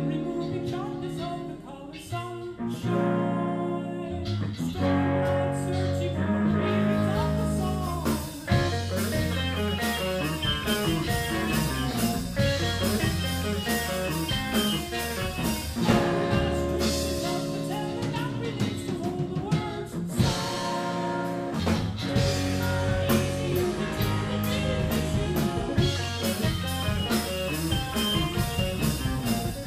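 Live rock band rehearsing on a Ludwig drum kit, electric guitar and keyboards. Held chords open the passage, then the drums come in about six seconds in and the full band plays on, easing back to held chords briefly in the middle before the beat returns.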